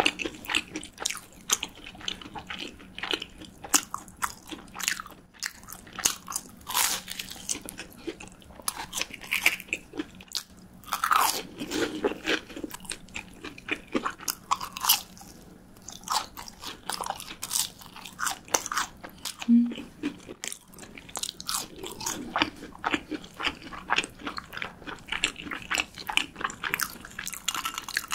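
Close-miked biting and chewing of breaded, deep-fried cheese sticks: many sharp, crisp crunches of the fried coating, one after another.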